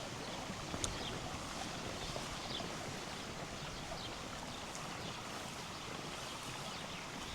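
River water running steadily, with a few faint, short bird chirps over it.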